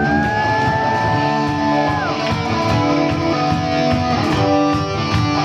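Live rock band playing the instrumental intro of a song, led by electric guitar over bass and drums. A long high note slides up, holds, and drops off about two seconds in.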